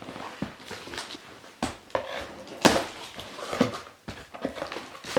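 A parcel being unpacked by hand: packaging rustling and crinkling, with a handful of sharp crackles.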